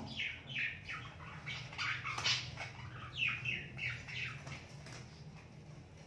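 Budgerigar (budgie) chirping: a rapid string of short chirps, each falling in pitch, about three a second, dying away after four or five seconds. A steady low hum runs underneath.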